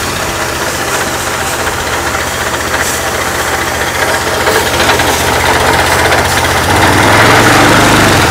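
Honda GX390 single-cylinder engine on a gas pressure washer running steadily just after a cold pull-start with the choke on, while the spray gun discharges water. It gets louder about seven seconds in.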